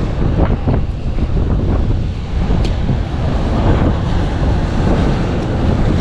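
Strong wind buffeting the microphone, over surf breaking on the rocks.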